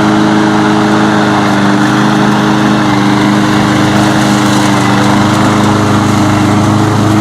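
Engine of an Evatech Hybrid GOAT 22T remote-control tracked slope mower running at a steady speed as the machine is driven.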